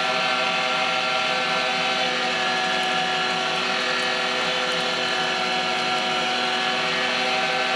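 Electric meat grinder's motor running steadily under load as it grinds cubed deer meat, a constant even hum.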